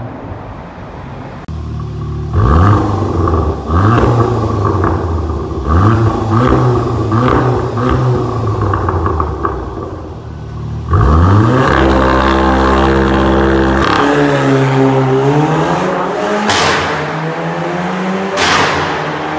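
Volkswagen Golf R Mk7's turbocharged 2.0 TSI four-cylinder revved hard in repeated short bursts, echoing in a road tunnel. It is then held at a steady high pitch on launch control and launches, the pitch sweeping up as it accelerates away, with a sharp crack at each of two upshifts about two seconds apart.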